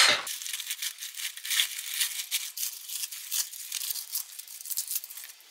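Leaves of a head of curly green-leaf lettuce crinkling and snapping as they are pulled apart by hand: a run of small, irregular crackles that grows fainter near the end.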